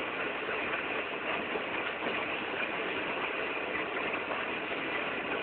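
Steady, even drone of ship engines and machinery running at sea, with no distinct events.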